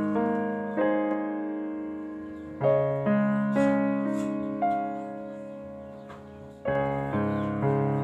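Background piano music: slow chords struck every second or two, each ringing on and fading away.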